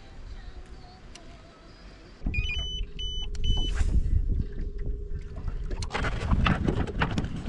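Boat motor starting up and running with a steady hum, with three short electronic beeps just after it starts. Wind and water rush grow louder near the end as the boat gets under way.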